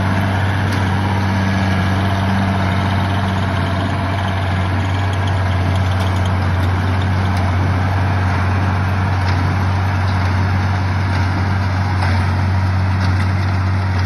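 International Harvester 966 tractor engine running steadily with a low hum while it drives a New Holland 316 small square baler baling hay.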